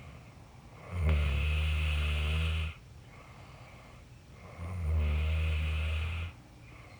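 A person snoring: two long, deep snores, each just under two seconds, about four seconds apart, with a faint steady background between them.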